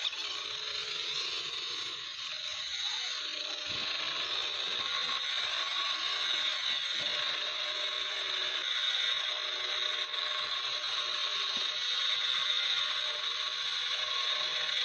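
Steady, high hissing noise from a workshop machine at work.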